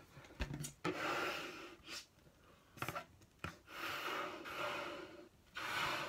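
A man blowing hard into a large latex balloon: two long exhalations, the second longer, with quick sharp in-breaths between them.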